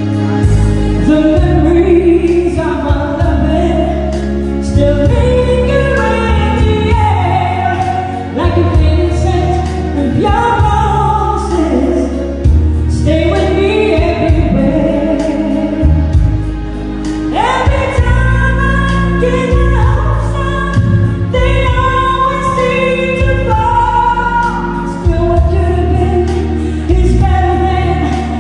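Solo singer singing a song live into a microphone over instrumental accompaniment, amplified through a PA speaker.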